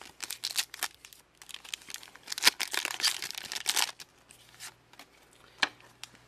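A 1996 Fleer X-Men foil booster pack wrapper being torn open and crinkled by hand, a dense crackling rustle for about four seconds, then a few lighter rustles and a sharp click as the cards are drawn out.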